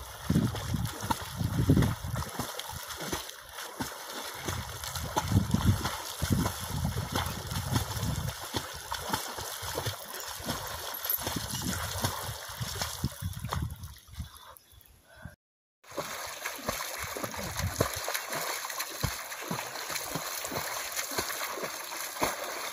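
Water splashing and sloshing from a swimmer's arm strokes and kicks in a farm pond, coming in irregular strokes. The sound fades and drops out for a moment a little after the middle, then the splashing carries on.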